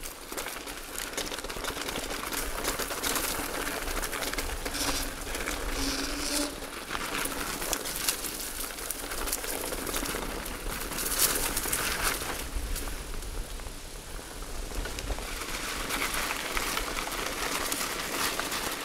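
Mountain bike rolling along a dirt forest trail: tyres crackling over dry leaves and the frame rattling over bumps.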